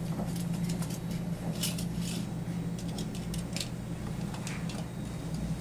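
Scattered light clicks and short scrapes from a metal tape measure being handled, over a steady low hum.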